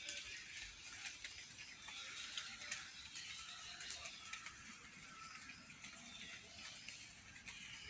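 Faint outdoor background: a steady high hiss with faint chirps and a few scattered light clicks.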